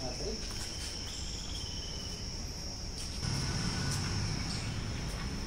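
Insects giving a steady high-pitched drone in the background. A low rumble comes in about three seconds in.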